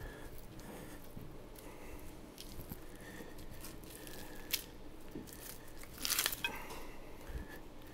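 Boning knife cutting and hands pulling at a dry-aged beef chuck roll to strip off the paddywhack: small scattered clicks and scrapes of blade and meat, with a sharp click about four and a half seconds in and a louder, longer scrape about six seconds in.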